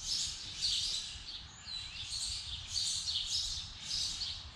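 Songbirds chirping and singing, short high chirps coming in repeated bursts about once or twice a second.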